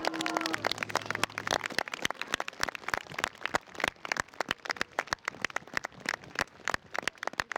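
Audience applause: many separate hand claps, starting as the last held note of a song dies away in the first second, then gradually thinning out.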